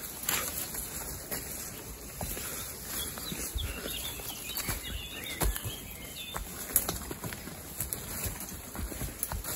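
A donkey's hooves and footsteps knocking and scuffing irregularly over rough, overgrown ground, with a few heavier thuds and rustling undergrowth. A bird chirps faintly in the middle.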